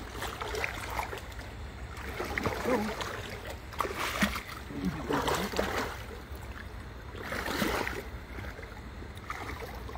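Bare feet wading through shallow water, with splashes about four, five and seven and a half seconds in.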